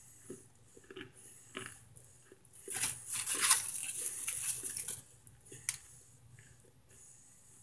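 Microwaved cornstarch chunks and their torn paper box being handled: scattered small clicks, then about two seconds of dense crackling and crinkling from about three seconds in, and a lone click near the end.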